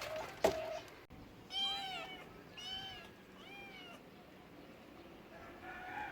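A cat meowing three times in short, rising-then-falling meows, with another meow starting near the end. A sharp click comes about half a second in.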